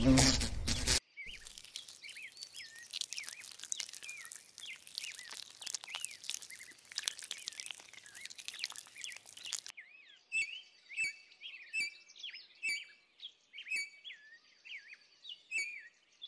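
An insect's buzz cuts off about a second in. Dense bird chirping mixed with clicks follows, then, about ten seconds in, separate short chirps about once a second.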